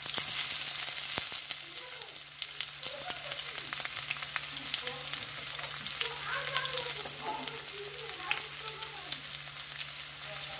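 Sliced onions frying in hot oil in a frying pan: a steady sizzle with frequent small crackles and pops.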